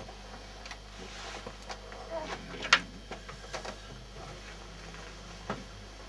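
Faint small clicks and rustles of hands working a feather and tools at a fly-tying vise, with one sharp click about three seconds in.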